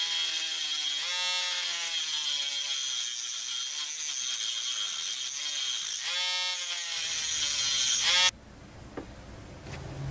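Dremel rotary tool with a cutoff wheel running at high speed as it cuts through a statue's wrist; its whine dips in pitch twice as the disc bites, then stops abruptly about eight seconds in.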